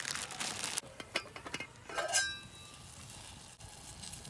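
Titanium canteen cup lid lifted off the cup: a sharp metallic clink with a brief ringing about halfway through, after a few light knocks and a crinkling rustle at the start.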